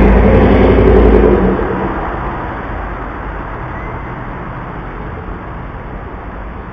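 A car driving past with a loud engine and exhaust note, loudest in the first second and a half and then fading away as it moves off down the street.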